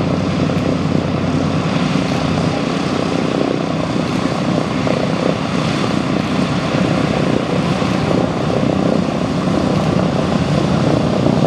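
Propeller aircraft engines running steadily, growing slightly louder near the end.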